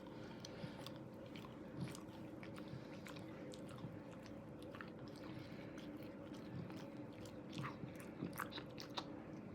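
English bulldog chewing and crunching a snack with its mouth, a run of short crisp crunches and clicks that comes thicker and louder in the second half.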